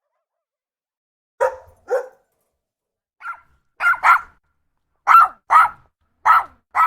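Dog barking: short, sharp barks, mostly in pairs, about nine in all, starting about a second and a half in.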